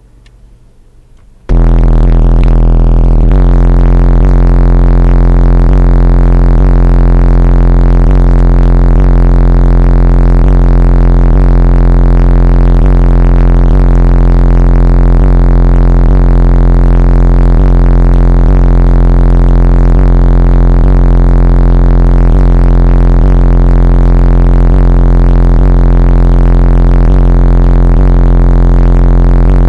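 Car stereo playing very loud, bass-heavy music inside the car's cabin, cutting in suddenly about a second and a half in. A deep bass note is the loudest part, under a repeating synth pattern that steps along at a steady pace.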